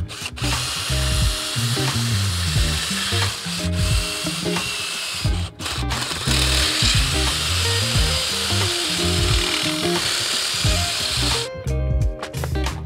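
Power drill with a long bit grinding through the ceramic honeycomb core of a diesel particulate filter to hollow it out, under background music.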